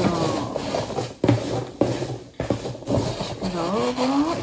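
Several sharp knocks and scrapes of objects being handled and set down on a tabletop, the loudest between about one and two and a half seconds in, with a woman's voice briefly at the start and again near the end.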